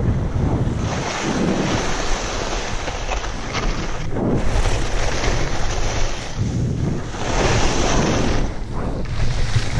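Wind buffeting the microphone of a skier's camera, with the hiss of skis on snow swelling and fading about every two to three seconds as the skier turns.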